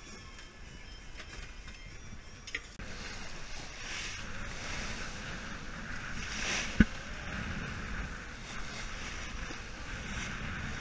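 Wind and water rushing along a sailboat at sea, a steady noisy wash that grows louder about three seconds in. There is one sharp knock about seven seconds in.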